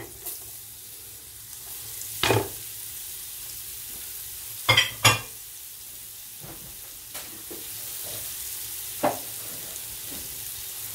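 Hot oil sizzling in a cooking pot as grated carrot frying with raisins and carrot sticks, with four sharp knocks against the pot, one about two seconds in, a quick pair near five seconds, and one near nine seconds.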